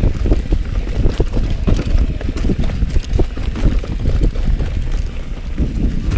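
Wind buffeting the microphone on a mountain bike during a fast dirt-trail descent, with a constant low rumble and frequent short rattles and knocks from the bike as its tyres go over the bumpy trail.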